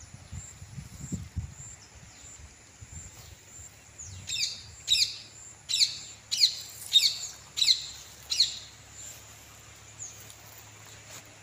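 A bird calling: a run of about seven sharp calls, each falling in pitch, roughly one every two-thirds of a second, starting about four seconds in.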